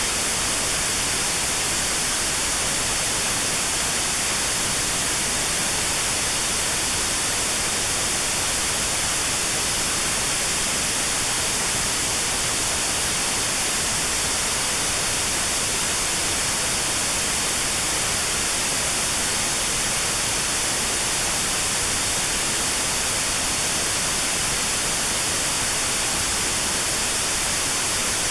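Steady white noise with a narrow band around 4 kHz filtered out, a notched sound for tinnitus therapy. A constant, even hiss that never changes.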